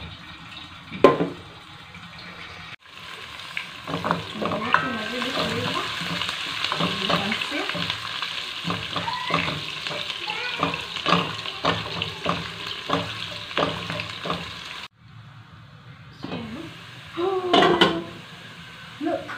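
Chopped onions frying in hot oil in a pot, sizzling steadily while a wooden spoon stirs them and knocks against the pot. There is a louder clatter near the end.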